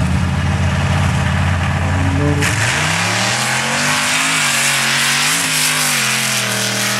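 Off-road drag trucks' engines rumbling deep and loud at the start line, then about two and a half seconds in opening to full throttle at the launch. The engine note climbs and wavers as they accelerate away.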